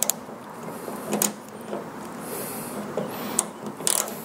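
Scattered clicks and small metallic knocks from a wrench and a steel hood-strut bracket as a 10 mm bolt on the underside of a car hood is tightened by hand. The knocks come at irregular moments, the loudest cluster near the end.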